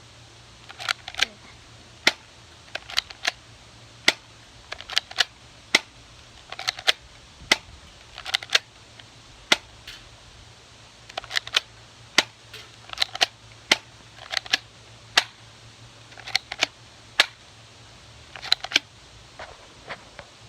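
Airsoft P228 pistol being fired repeatedly: a string of sharp cracks at an irregular pace, often in quick pairs a fraction of a second apart.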